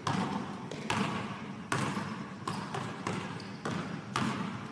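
Basketball bouncing on a gym floor: about seven sharp thumps at uneven intervals, each echoing through the large hall.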